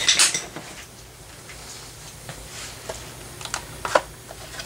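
Plastic radio casing being handled and folded down by hand: a short scraping rustle at the start, then scattered light clicks and knocks, the sharpest about four seconds in.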